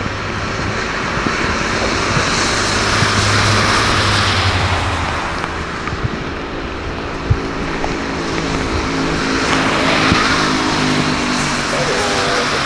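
A running engine: a steady low hum under a rushing roar that swells twice, once in the first half and again past the middle.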